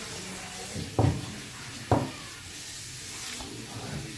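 Two dull knocks about a second apart, a cup or dish being set down and handled on a tabletop, over faint steady room hiss.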